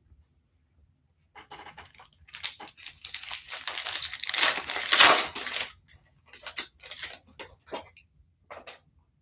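Foil wrapper of a 2021 Bowman trading card pack being torn open by hand, a run of crinkling and tearing that is loudest about five seconds in. A few short crinkles follow as the stack of cards is pulled out.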